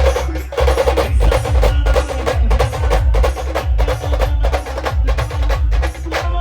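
A live band's percussion break: rapid, dense drum and percussion strokes over heavy, booming bass-drum beats.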